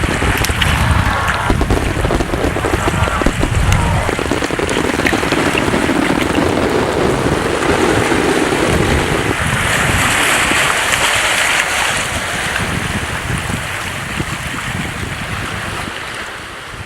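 Sea waves washing and wind blowing, a steady rushing noise with a low rumble that fades slightly at the end.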